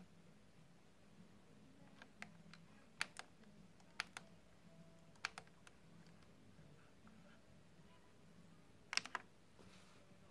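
Scattered sharp clicks at irregular intervals, the loudest pair near the end, like the push buttons and controls of a car radio-cassette unit being operated, over a faint steady low hum.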